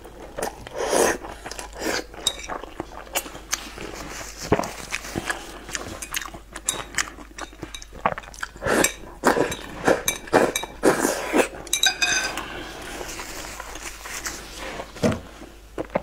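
Chopsticks tapping and scraping against a ceramic bowl in irregular clicks, mixed with close-up eating sounds: chewing and slurping of a saucy dish. About twelve seconds in there is a brief ringing clink.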